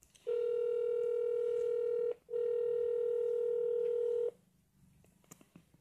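Cordless phone on speaker sounding a steady telephone tone twice, about two seconds each with a brief break between, then a few faint clicks near the end.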